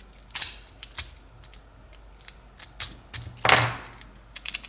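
Scattered light metallic clicks and rattles from a heavy-duty steel padlock being handled, with one louder scraping clatter about three and a half seconds in.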